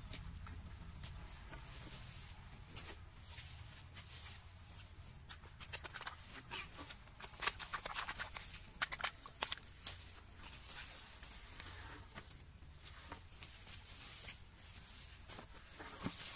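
Hands rustling and tearing through grass and weeds, a run of dry crackles and snaps that is busiest in the middle, over a low steady rumble.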